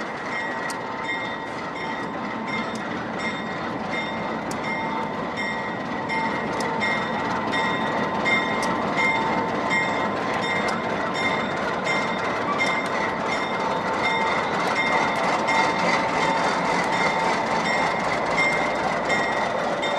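Narrow-gauge train running along the track: a steady rolling rumble of wheels on rail with a steady high whine over it and light clicks scattered through. It grows a little louder about six seconds in.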